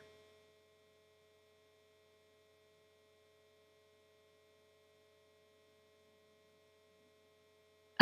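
Near silence, with only a faint steady hum.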